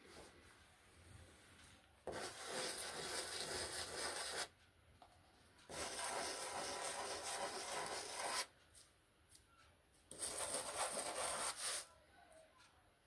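A small dried-clay miniature vase sanded by hand on a sheet of sandpaper: three spells of scratchy rubbing, each two to three seconds long, starting about two, six and ten seconds in.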